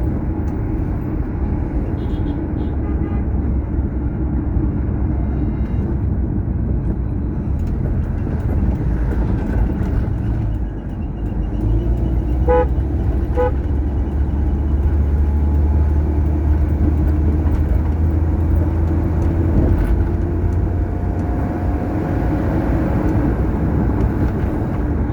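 Motor vehicle driving at road speed with a steady engine and tyre rumble, and two short horn toots about twelve and thirteen seconds in.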